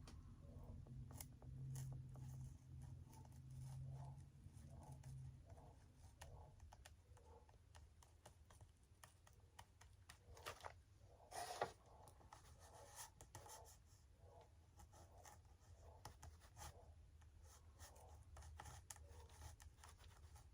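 Faint scratching and small clicks of hands working on a foam RC model wing, with one louder scrape about eleven seconds in, over a low steady hum.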